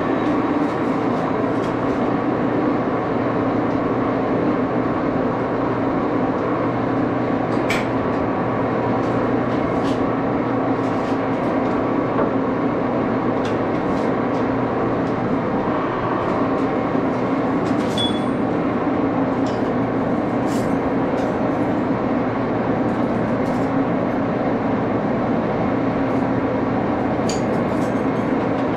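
Baby Axelson engine lathe running steadily: the geared headstock gives a constant hum with a faint whine, and a few light ticks sound over it.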